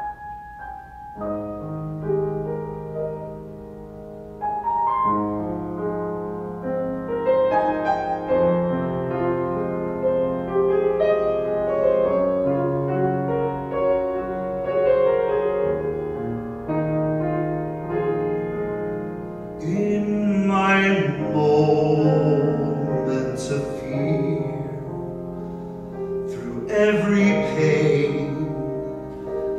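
Grand piano playing a slow solo introduction, note by note and then in fuller chords. About two-thirds of the way through, a man's voice comes in singing along to it.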